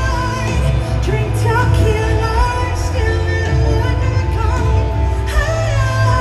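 A live rock band playing in concert with heavy, steady bass, while a woman sings lead with wavering, held notes over it.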